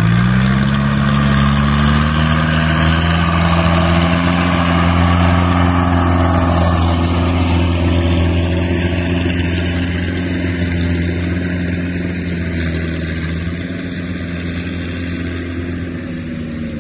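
Engine of a tracked rice carrier loaded with sacks of paddy. It revs up over the first few seconds, then runs steadily under load, easing off slightly near the end.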